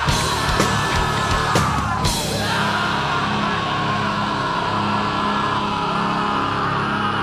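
Rock band recording with distorted guitars and drums. The drum hits stop about two seconds in, leaving the guitars holding a sustained chord that rings on.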